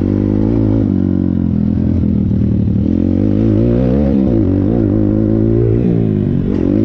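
Thumpstar 140cc pit bike's single-cylinder four-stroke engine running hard under a rider, its pitch rising and falling as the throttle is worked through the middle and later part.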